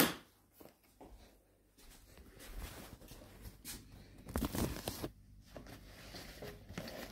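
Handling noise: a sharp click at the start as the phone is moved, then scattered rustling of a black fabric bag being picked up and turned in the hands, loudest about four and a half seconds in.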